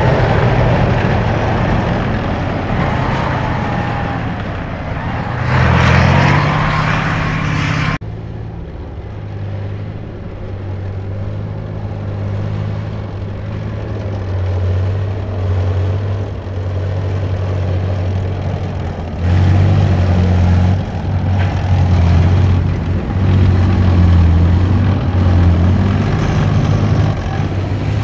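A T-72 tank's V12 diesel running as it drives through sand, with a squeal that wavers up and down. After a cut about eight seconds in, a BMP-1 infantry fighting vehicle's diesel engine runs steadily and grows louder about two-thirds of the way through.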